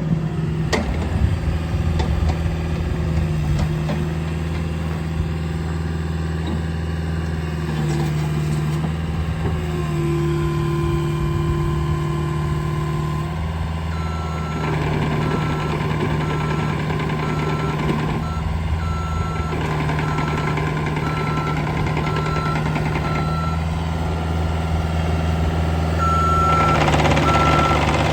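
Caterpillar 305E CR mini excavator's 40 hp diesel engine running steadily while the machine is operated, with a steady whine for a few seconds in the middle. From about halfway, its alarm beeps evenly, about one and a half beeps a second, stopping briefly near the end and then starting again.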